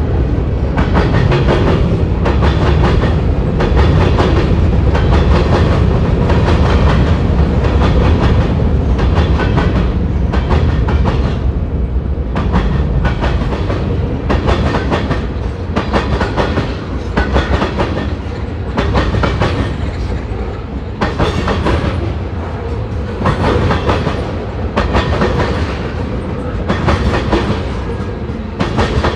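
Railroad train rolling past, its wheels clacking over rail joints in a steady repeating rhythm over a heavy low rumble.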